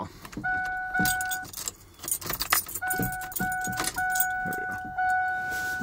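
Keys jangling and clicking in a Ford F-150's ignition as the key and steering wheel are wiggled, while the truck's dashboard warning chime sounds in a string of steady beeps, short at first and longer toward the end.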